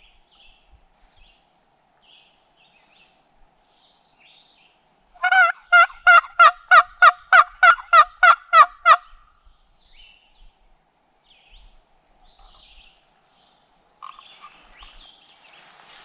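Wooden turkey box call run in a loud, evenly paced series of about fourteen hen yelps, roughly four a second, lasting some four seconds from about five seconds in. Faint songbird chirps come and go around it, and rustling begins near the end.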